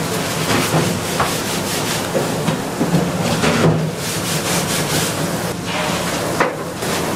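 Hands-on salmon and sushi preparation: irregular rubbing and scraping with a few light knocks over a constant kitchen hiss.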